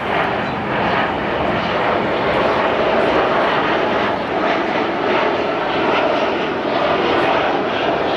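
Boeing 737-400 airliner's CFM56-3 turbofan engines passing low overhead on landing approach: loud, steady jet engine noise.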